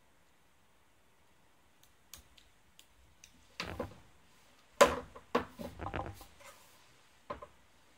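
Hands handling small robot parts and a metal hand tool on a wooden desk: scattered light clicks, then a cluster of sharper knocks and taps about halfway through as parts and the tool are set down and picked up.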